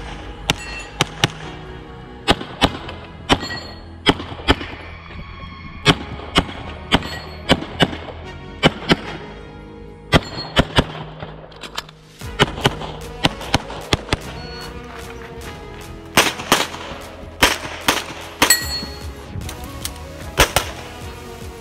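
Pistol shots from a CZ Shadow 2, fired in fast strings and quick pairs of shots, with a brief pause about twelve seconds in, over background music with a steady bass line.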